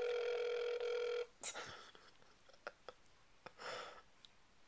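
Ringback tone of an outgoing call heard through an iPhone's speakerphone: one steady ring that stops about a second in, followed by a few faint clicks and soft noises while the line waits to be answered.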